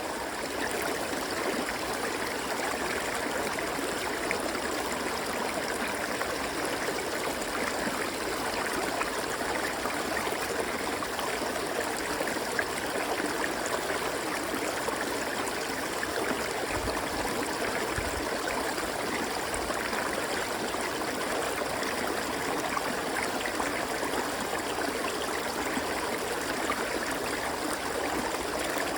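A river flowing and rushing steadily over rocks, an even wash of water sound.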